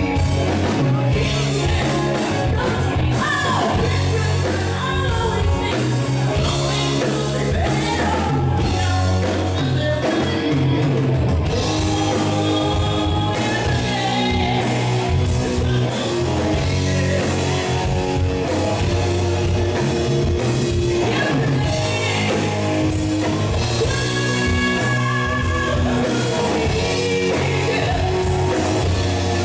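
Live rock band playing a song, with drums, guitar and a lead singer singing into a microphone.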